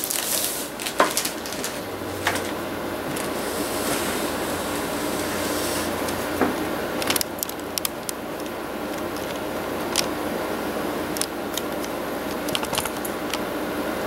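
Scattered light clicks and taps of plastic laptop display parts and an LCD panel being handled, over a steady room hum.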